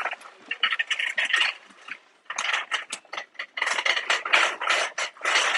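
Metal shopping cart rattling and clattering as it is pushed along, in uneven bursts with a short lull about two seconds in.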